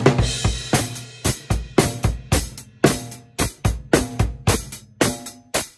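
Drum kit played in a steady beat, its Tama Woodworks 14x8-inch wooden snare drum struck with sticks alongside bass drum and cymbals. A cymbal crash washes over the opening second.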